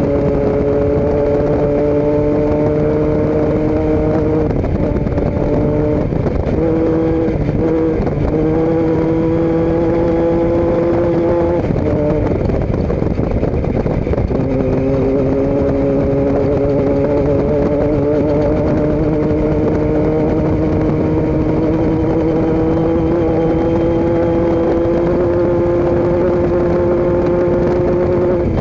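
A vehicle engine running at a steady pace with a humming tone. The tone wavers and breaks up briefly twice in the first half, then slowly rises in pitch.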